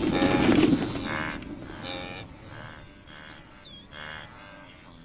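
Wildebeest calling repeatedly, short pitched calls about one to two a second that grow fainter, after a loud noisy burst in the first second.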